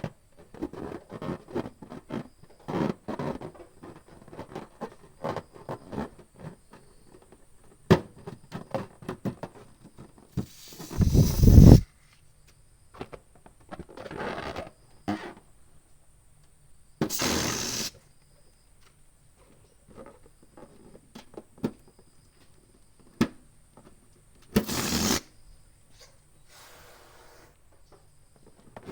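Balloons and an air pump being handled. Many quick rubbery squeaks and taps run through the first ten seconds. Then come several separate bursts of rushing air, each about a second long, the loudest and deepest about eleven seconds in.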